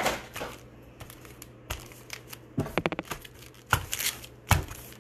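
Foil-wrapped baseball card packs rustling and crinkling as hands pick through a stack of them, with a few sharp clicks and taps spread through, the loudest two near the end.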